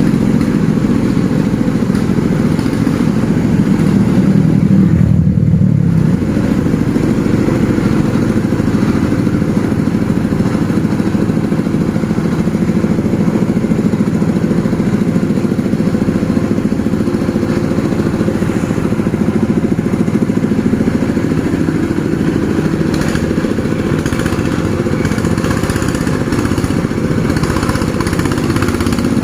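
Vehicle engines running steadily on a steep uphill climb, a motorcycle-like engine sound loudest, swelling a little about four to six seconds in.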